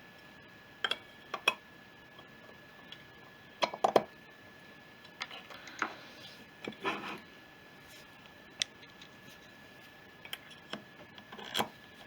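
Small carburettor parts being handled and fitted by hand on a workbench: scattered light clicks, taps and brief scrapes of metal and plastic, the loudest cluster about four seconds in.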